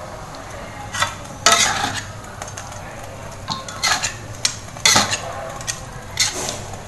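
A metal spatula stirring and scraping chicken pieces around a pan of bubbling spiced sauce on a high flame, with about five sharp scrapes against the pan over a steady sizzle.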